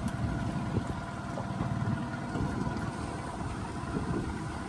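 Steady low rumble of a boat motor running at low speed, with a faint steady hum above it.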